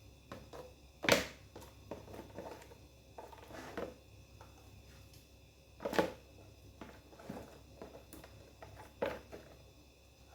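Scattered sharp knocks and clicks in a quiet room: three louder knocks about a second in, about six seconds in and about nine seconds in, with fainter clicks between them.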